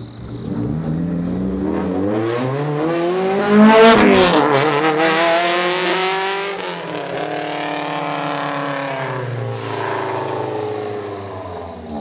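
Two Honda Civic hatchbacks (EK4 and EG4) driving on a mountain road, their four-cylinder engines revving hard, pitch rising and falling through gear changes. Loudest about four seconds in, then the engines fade away.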